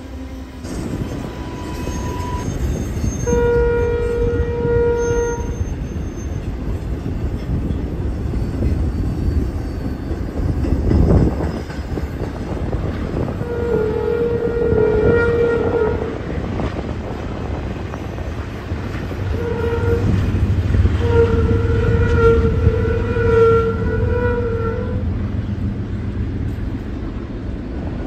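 Snow-filled Nathan K3L air horn on a BNSF freight locomotive sounding four blasts: long, long, short, long. Under it runs the rumble and clickety-clack of a passing freight train.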